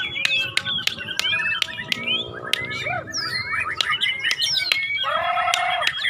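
White-rumped shamas singing against each other in competition: rapid, varied whistled phrases and trills mixed with many sharp clicking notes. A lower, drawn-out call comes in about five seconds in.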